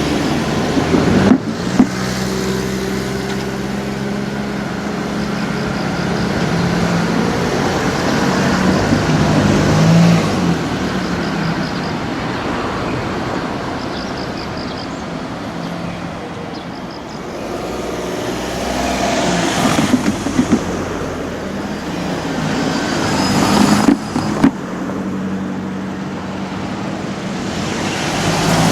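Road traffic: car engines running and vehicles driving past, a steady engine hum that swells and fades, with a few brief sharp peaks.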